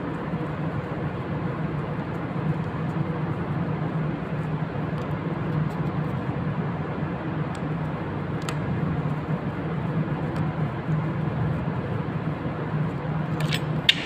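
Steady machinery noise of a ship's steering gear room, a constant low hum with an even rush over it. Faint clicks of a screwdriver working on the low-oil-level switch's connector plug, and a couple of sharper clicks near the end as the plug comes off.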